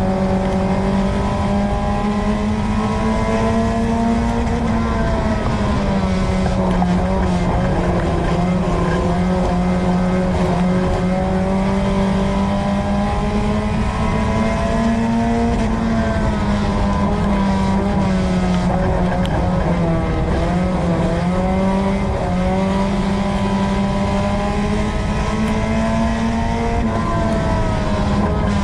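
A USRA Tuner race car's four-cylinder engine, heard from inside the car, running hard at high revs. The pitch dips and climbs again every several seconds as the driver lifts and gets back on the throttle.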